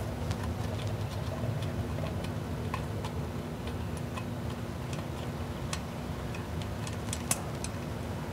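Scattered small clicks and ticks of a screwdriver turning the screws of a floodlight fixture's cover plate, with one sharper click near the end, over a steady low hum.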